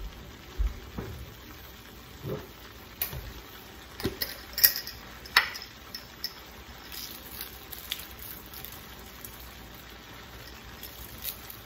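Shrimp cooking in butter, garlic and lemon juice in a frying pan, a steady low sizzle with scattered sharp clicks and pops.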